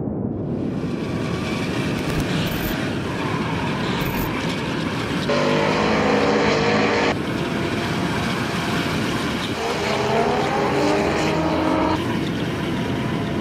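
Drift cars' engines revving at high speed over a dense haze of noise. The engine pitch climbs in two stretches, about five seconds in and again near ten seconds, and the sound changes abruptly between edited clips.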